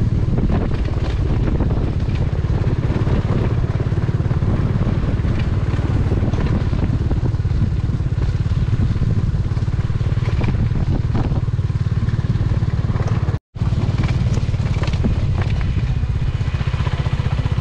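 Motorcycle engine running steadily under way, with road and wind noise from riding on a gravel track. The sound cuts out for an instant about two-thirds of the way through.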